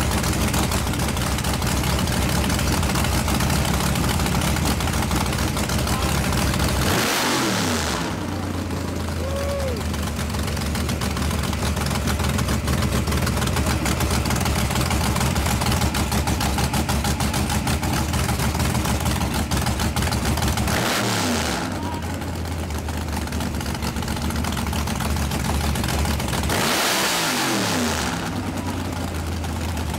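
Nitro-burning fuel altered drag car's injected V8, with open zoomie headers, idling at a steady lumpy cackle. The throttle is blipped three times: once about a quarter of the way in, again about two-thirds in, and once near the end. Each time the revs jump sharply and then fall back to idle.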